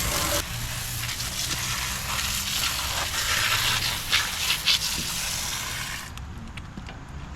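Garden hose spraying water onto a small machine, a spattering hiss with a few sharper splashes, cutting off about six seconds in and leaving scattered small ticks. A steady low hum runs underneath.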